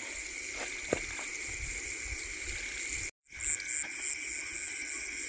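Steady chirring of night insects, with a couple of light ladle clicks against a steel cooking pot in the first second; the sound drops out briefly about three seconds in.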